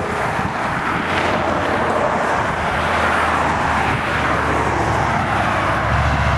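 Heavy rain with big drops pelting the vehicle, building in intensity as the supercell's hail core arrives, over a steady low hum of the vehicle's engine that comes up about halfway through and strengthens near the end.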